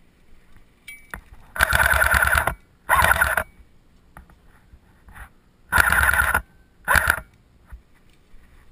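JG AKS-74U electric airsoft rifle firing four rapid bursts with its motor and gearbox whirring: a longer burst and a short one, then the same again about three seconds later.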